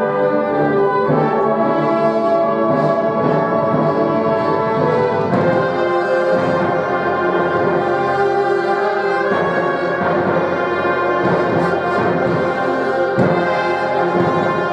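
Music with brass instruments playing sustained chords, the harmony changing every few seconds.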